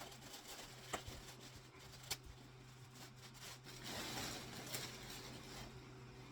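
Faint handling noises from unpacking a boxed collectible statue: a few sharp light clicks, then a brief rustling scrape of packaging material.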